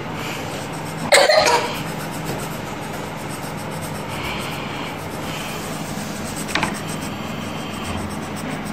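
A single cough about a second in, over a steady low hum, with a short tick later on.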